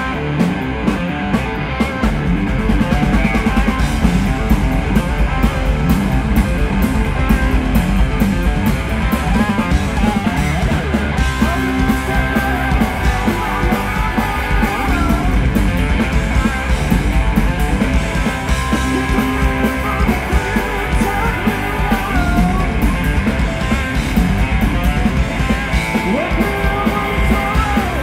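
Live hard-rock power trio playing loudly: electric guitar, electric bass and drum kit. The drums and bass come in fully about two seconds in.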